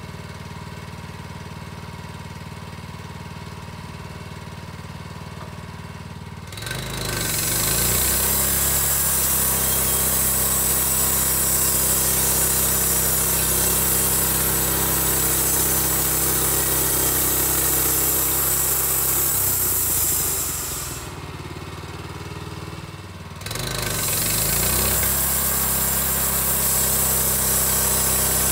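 Portable band sawmill's engine idling, then revved up about six seconds in so the band blade spins at full speed. It drops back to idle around twenty seconds in and revs up again near the end as the cut into the eastern white cedar log begins.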